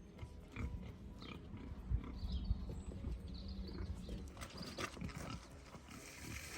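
Pigs grunting and feeding, a run of irregular short grunts and knocks.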